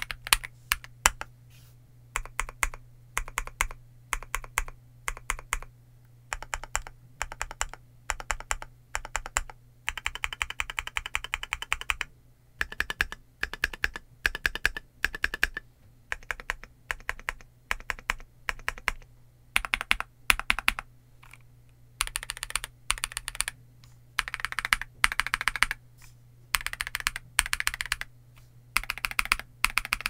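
Typing on a stock KiiBoom Phantom68 mechanical keyboard with crystal switches and crystal keycaps: quick runs of keystrokes broken by short pauses. There is a fast, unbroken flurry about ten seconds in, and the runs come closer together in the last third.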